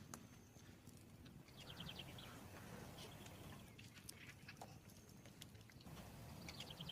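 Faint outdoor ambience with scattered small clicks and two short runs of quick, high chirps, about a second and a half in and again near the end.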